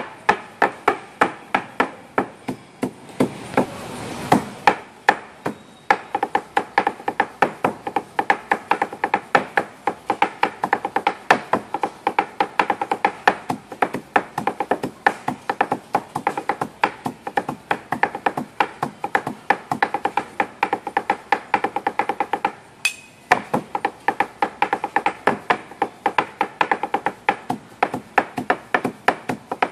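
Meat cleavers chopping sisig on a wooden chopping block in a fast, steady drum-like rhythm, several strokes a second. There is a brief hiss about four seconds in and a short pause about 23 seconds in.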